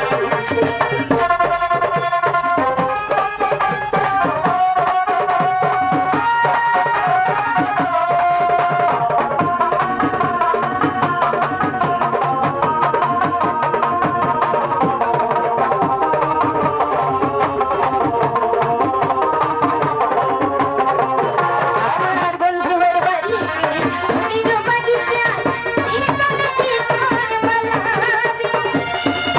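Live Bengali folk music: hand drums keep a steady beat under a melody of held notes.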